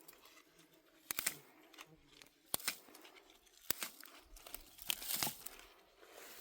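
Wild herb plants being picked by hand: dry stems snapping several times with leaves rustling and tearing in between, the rustle swelling near the end.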